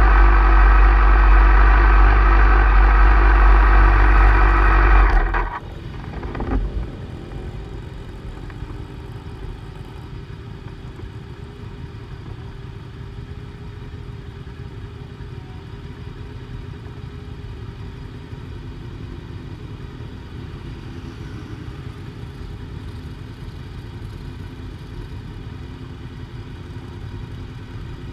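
Motorcycle engine idling steadily close by, then cut off abruptly about five seconds in. After that, a quieter steady rumble of other motorcycles idling nearby carries on.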